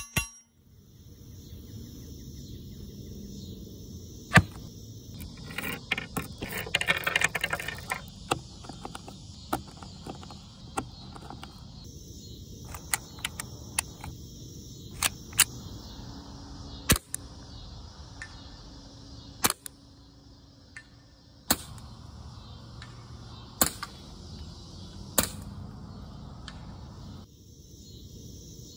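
Integrally suppressed Ruger 10/22 .22 LR rifle firing single shots, each a short sharp crack, about a dozen spread a second or two apart with a quicker string around a quarter of the way in, over a steady high background hiss.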